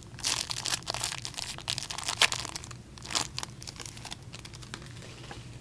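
Shiny wrapper of a trading card pack being torn open and crinkled by hand: a dense run of sharp crackles that thins out after about three and a half seconds.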